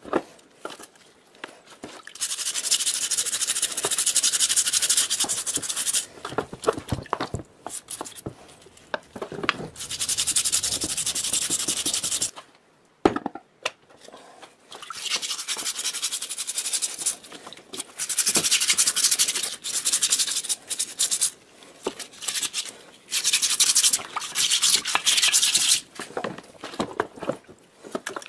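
Stiff brush scrubbing the old air compressor's finned cylinder and crankcase, wet with cleaning solution, in repeated runs of strokes a few seconds long with short pauses and a few light knocks between them.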